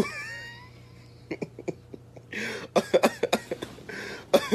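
A person coughing several times in short, harsh bursts, starting about a second in, with a heavier run of coughs around the middle and another near the end.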